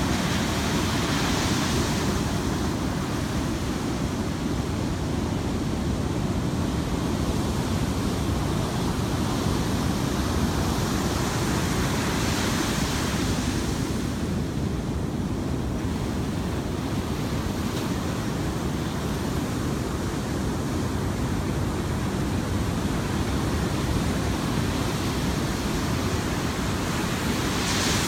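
Heavy ocean surf breaking: a continuous wash of wave noise, with louder hissing swells three times as waves crash, near the start, midway and near the end.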